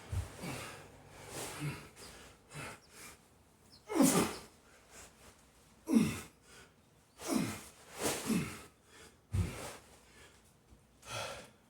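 A man breathing hard from exertion, with sharp, forceful exhales and gasps every second or two, several falling in pitch, while lifting a heavy sandbag.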